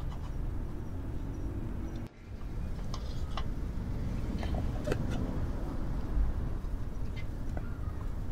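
Steady low rumble with a few light clicks and taps as a round wooden bento box is handled and closed with its wooden lid.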